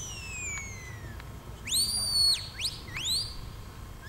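A sheepdog handler's whistle commands to a herding dog. A long falling whistle ends about a second in, then one rises sharply to a high note that is held for about half a second, and two short rising whistles follow near the end.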